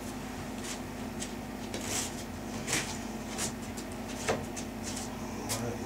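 Scattered clicks and knocks of tools and plumbing parts being handled during pipe work, about seven sharp ones spread over several seconds, over a steady low hum.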